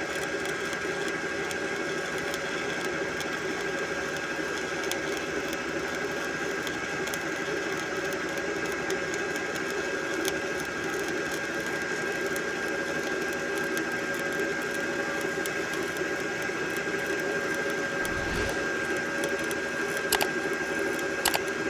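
Shielded metal arc (stick) welding with a 1/8-inch E7018 electrode at about 100 amps: a steady, even crackle of the arc with a constant high tone over it, and a few sharp clicks near the end.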